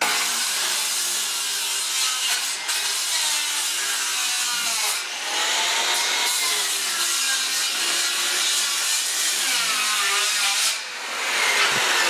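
Handheld circular saw cutting through wood, trimming the overhanging ends of boards flush. The motor's pitch sags and recovers as the blade loads up, with brief letups about five seconds in and near the end.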